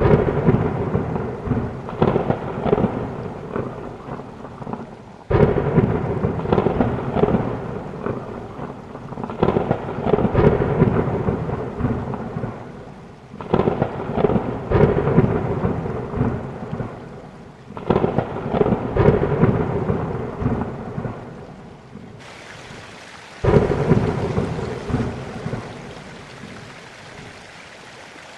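Rain falling steadily, with thunder breaking again and again. Each peal starts suddenly, about every four seconds, and rumbles away over the next few seconds.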